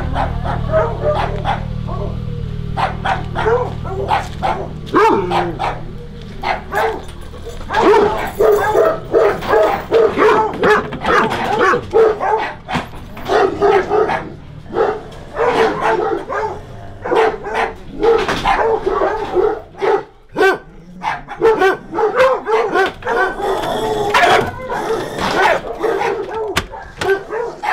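A dog barking over and over, in quick runs of barks with a brief lull about two-thirds of the way through.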